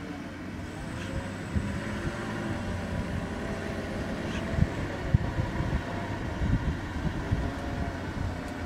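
A steady low engine rumble, as of a vehicle idling, with wind buffeting the microphone in uneven low thumps.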